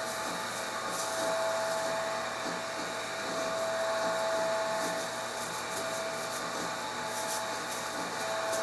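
Steady whirring of a small electric motor, with a thin whine over it that fades out and back in several times.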